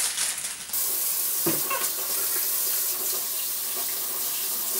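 Kitchen faucet turned on about a second in, water running steadily into a stainless steel sink as hands are rinsed under the stream.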